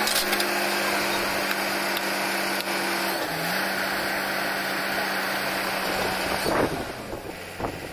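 Truck-mounted borewell drilling rig's engine running steadily. Its pitch dips briefly about three seconds in and climbs back, and near the end the steady note gives way to a noisy rush.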